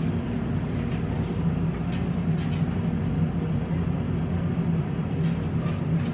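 Steady low machine hum, even and unchanging, with a few faint clicks scattered through it.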